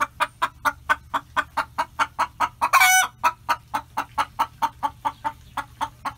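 Hen clucking in a fast, even run of about five clucks a second, with one louder, drawn-out squawk about three seconds in.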